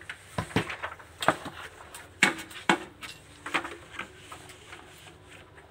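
A small wooden-handled hammer knocking on a hardcover book at a bookbinding bench: about half a dozen sharp, irregularly spaced strikes in the first three seconds. These are followed by softer knocks.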